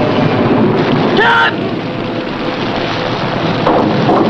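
Heavy rain squall with wind, a loud, steady rush of rain noise.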